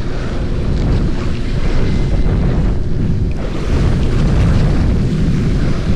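Wind buffeting the microphone on the deck of a fishing boat at sea: a loud, steady, rushing rumble with no distinct events.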